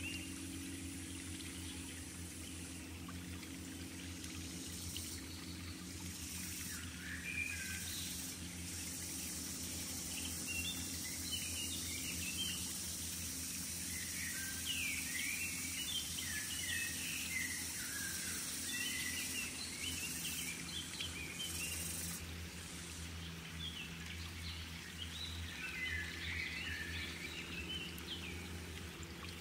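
Birds chirping in short, scattered calls, heaviest near the middle and again near the end, over a steady high hiss and a low steady rumble.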